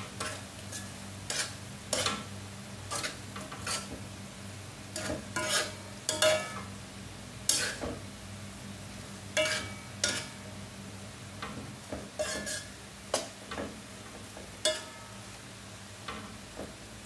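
A spatula stir-frying long beans and egg in a granite-coated wok, scraping and knocking against the pan in quick irregular strokes over a faint sizzle. A steady low hum runs underneath.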